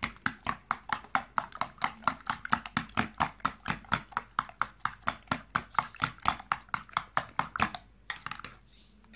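A metal spoon beating eggs, sugar and milk cream in a glass bowl, clicking against the glass about five times a second. The beating stops about eight seconds in.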